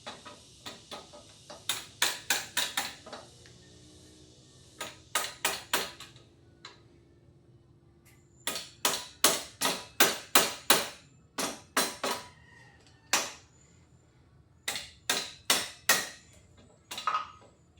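Plastic-faced hammer tapping on a motorcycle's top yoke, sharp taps in bursts of several at a time with pauses between, knocking the yoke free of the fork and steering stem.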